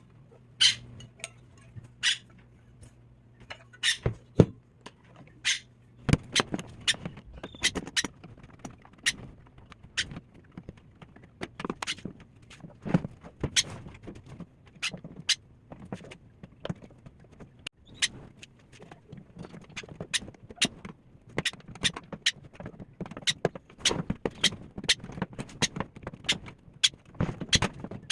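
Irregular clicks, taps and light clatter of tools and parts being handled on a microwave oven during repair. Under the first six seconds there is a steady low hum, which cuts off with a knock.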